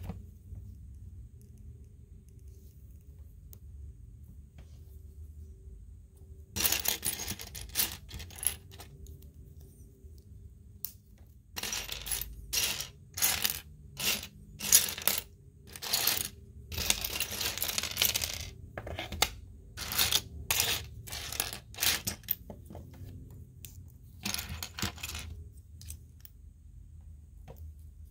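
Small plastic Lego pieces clattering and rattling against each other in repeated bursts, starting several seconds in.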